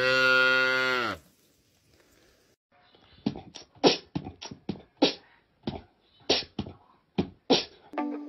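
A low cow moo lasting about a second, dropping in pitch as it ends. After a pause comes an irregular run of about a dozen short, sharp pops and clicks. Guitar music starts near the end.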